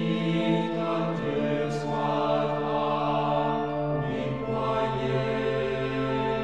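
Background music: held, choir-like chords that change every few seconds.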